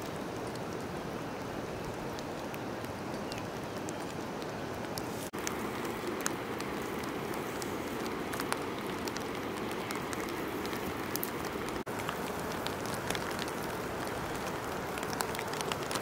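Steady rain falling on grass and leaves, with many individual drops ticking close by. The hiss breaks off briefly twice, about five and twelve seconds in.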